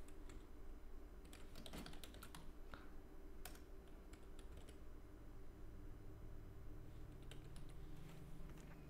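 Faint, irregular keystrokes on a computer keyboard as a short line of numbers and symbols is typed.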